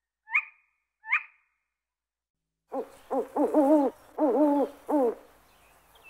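Owl calling: two short, sharp higher calls in the first second and a half, then after a pause a run of about five hoots whose pitch wavers up and down, over faint background hiss.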